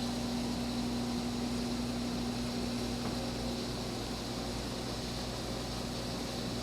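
Steady hum and hiss of a running machine, with a constant low tone underneath.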